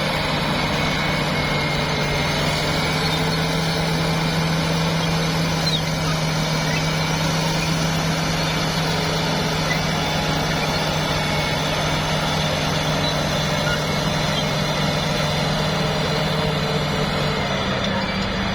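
Heavy diesel machinery engine running steadily under load, its low drone dropping slightly in pitch near the end.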